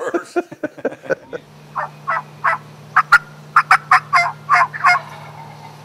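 Turkey calling: about a dozen short, loud turkey notes in an uneven run, starting about a second and a half in, made on a call held to the hunter's mouth. A steady low hum lies under it.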